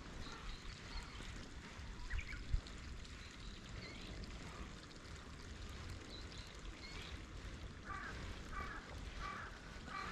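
Outdoor pondside ambience: a low rumble of wind on the microphone under a steady noise, with a few short bird chirps near the end.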